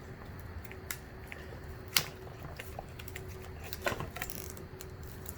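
Scattered small clicks and taps from hands handling parts during disassembly of a dirt bike's headlight and display assembly. There is one sharp click about two seconds in and a short cluster of clicks near four seconds, over a faint steady hum.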